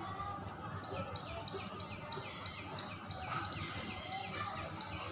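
Small birds chirping: a quick run of short, high, falling notes, a few each second, starting about a second in, over a low steady background hiss.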